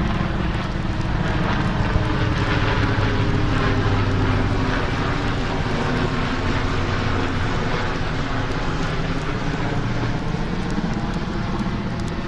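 Fixed-wing plane and helicopters flying low overhead together: a steady engine drone that swells over the first few seconds and then slowly eases off.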